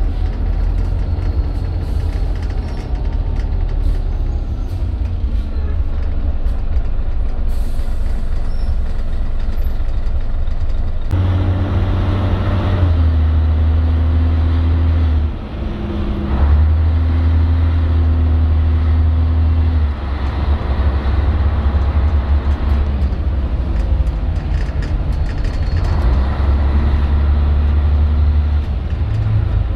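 A 1996 Scania L113 bus's 11-litre diesel engine heard from inside the cabin, loud, with a deep hum. It pulls away about a third of the way in, its note climbing, dipping once and climbing again, then eases off and pulls once more near the end.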